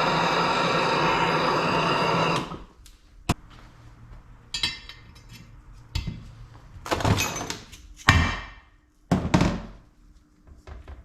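A heat gun warming the motorcycle engine case runs steadily, then shuts off about two seconds in. A sharp click follows, then several separate thunks and clunks as the case, tools and bearings are handled.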